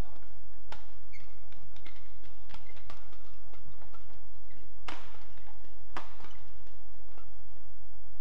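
Badminton rackets striking a feathered shuttlecock in a doubles rally: a few sharp, separate cracks, the loudest about five and six seconds in. A steady low hum runs under them.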